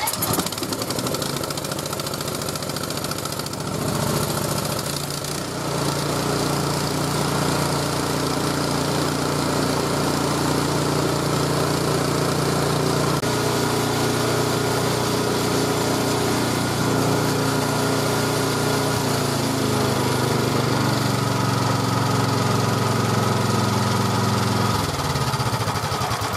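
Ariens Platinum 24 SHO snowblower's single-cylinder engine starting cold at the very beginning and then running steadily to warm up, its speed shifting slightly a few times.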